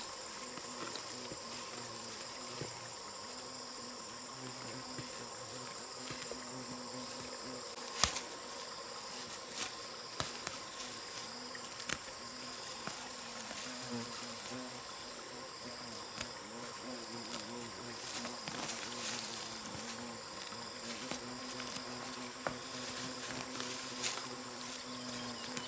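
A fly or bee buzzing on and off over a steady high-pitched insect chorus, with a few sharp knocks, the loudest about eight seconds in.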